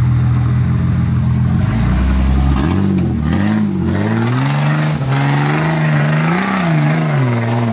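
Jeep Cherokee XJ engine running at a steady low pitch, then revved up and down several times as it climbs a steep rock ledge under load, easing off near the end.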